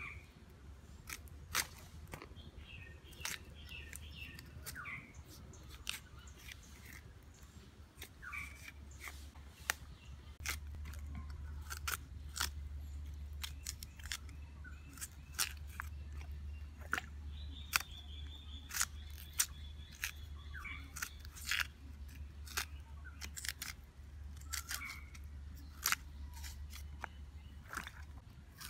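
Knife cutting and peeling the bark-like skin off cassava roots: irregular sharp cracks and snaps as the peel splits away. Birds chirp now and then in the background, over a low steady rumble.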